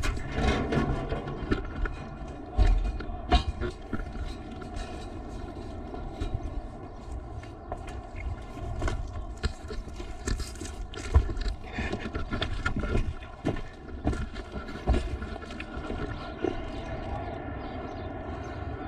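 FPV racing quadcopter in flight, heard through its onboard camera: steady motor whine over rushing wind, with frequent short knocks and crackles.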